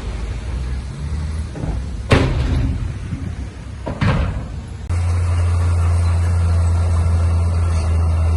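Heavy construction machinery running with a low engine rumble, broken by two loud bangs about two seconds apart. Partway through, the sound switches abruptly to a steady, louder low engine drone.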